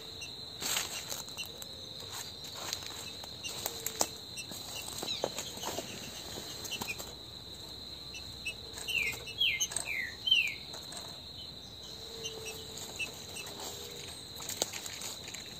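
A steady high insect trill runs on, with scattered light taps and rustles. About nine seconds in, a bird gives four quick descending notes in a row.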